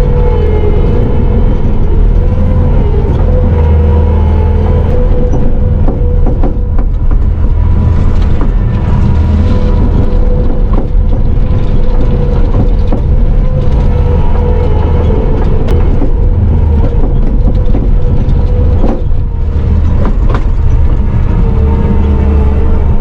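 Bobcat T650 compact track loader's diesel engine running steadily under work, heard from inside the cab, with a steady whine over it and occasional short knocks and clanks.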